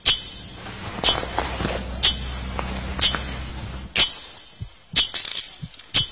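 Sharp metallic clinks about once a second, each ringing briefly, with a low hum beneath the middle strikes and a few quicker small clicks just after five seconds in.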